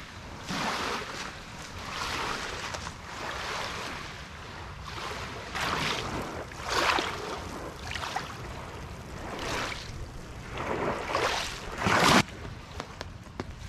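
Small waves lapping and washing onto a pebble beach, a swash every second or so, the loudest one breaking close by near the end and cutting off sharply.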